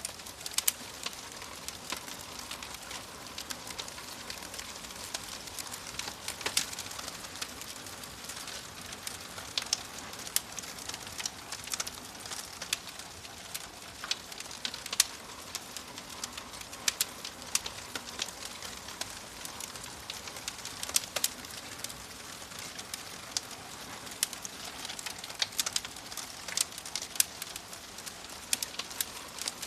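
Wood fire crackling: irregular sharp pops and snaps, a few louder than the rest, over a steady soft hiss.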